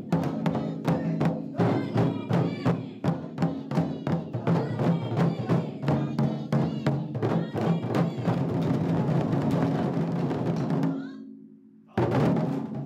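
A group of nagado-daiko (barrel-shaped taiko drums) struck together with wooden bachi sticks in a quick, even rhythm, each hit ringing deep. About eight seconds in the beats run together into a fast roll that dies away, then one last unison strike rings out near the end.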